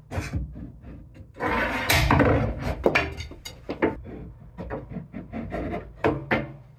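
3D-printed plastic end caps being pushed and worked into the ends of cut frame profiles: rubbing and scraping with a string of clicks and knocks. The loudest scraping comes about one and a half to two and a half seconds in.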